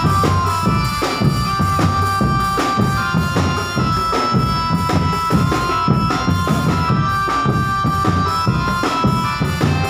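Drum band music: drums beat densely under a melody instrument holding long notes that step from one pitch to another.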